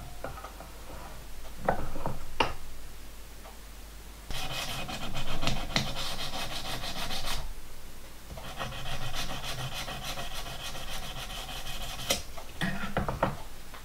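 280-grit emery cloth rubbed quickly back and forth over a small metal link clamped in a bench vice, polishing it to a satin finish. A few short strokes come first, then two long spells of fast rubbing with a brief pause between them, and a few short strokes near the end.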